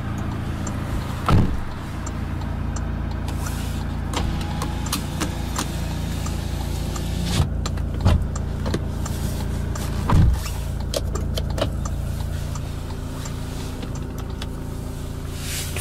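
Toyota Hilux diesel engine idling steadily just under 1,000 rpm, heard from inside the cab. A few brief knocks stand out, the loudest about a second in and about ten seconds in.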